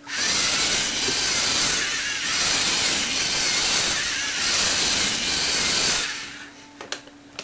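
Lego Technic plastic gearing of a motorised lift base running with a loud, even grinding whir that starts abruptly and stops about six seconds in, followed by two sharp clicks.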